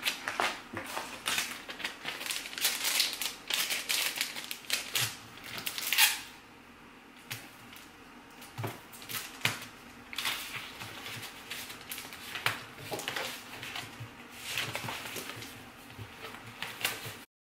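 Paper sticker sheets and a card-stock mailer rustling and tapping on a desk as they are gathered, slid together and folded, busy for the first six seconds and sparser after. The sound cuts off suddenly just before the end.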